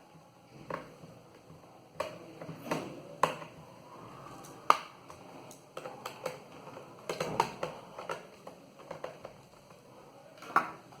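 Irregular light clicks and knocks from a laptop being handled and closed up during reassembly, as the hard-drive bay cover goes back on.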